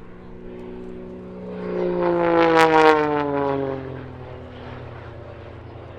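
Extra 330SC aerobatic monoplane's piston engine and propeller passing by, loudest about two to three seconds in, its pitch falling as it goes away.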